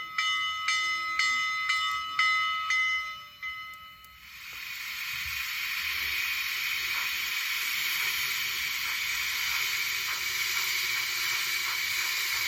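Model steam locomotive's ESU sound decoder playing through the model's small speaker: a bell rings about twice a second for roughly four seconds, then a steady steam hiss fades in and holds.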